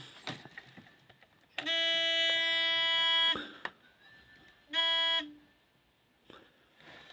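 Electronic buzzer sounding twice at one steady pitch: a long beep of about a second and a half, then a short beep about a second later. Light clicks come before it.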